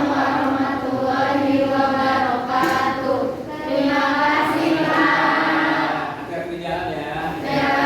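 A class of students answering together in a drawn-out unison chant, the reply to the Islamic greeting ('Wa'alaikumussalam warahmatullahi wabarakatuh'), in several long phrases.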